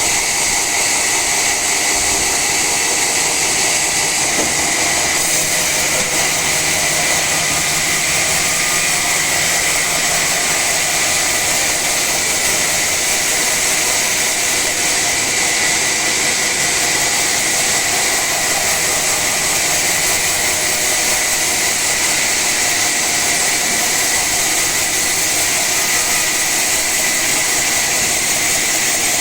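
Sawmill saw cutting through an old teak log: a loud, steady, high-pitched machine noise that holds evenly throughout.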